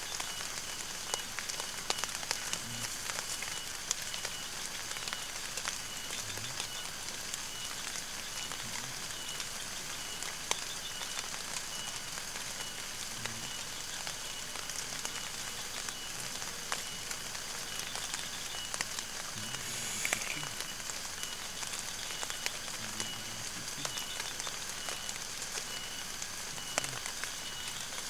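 Steady watery hiss with many small ticks scattered through it, like rain pattering on a surface.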